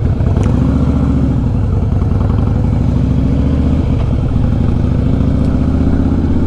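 2016 Harley-Davidson Fat Boy's V-twin engine running as the bike is ridden, with a brief change in the engine note about four seconds in.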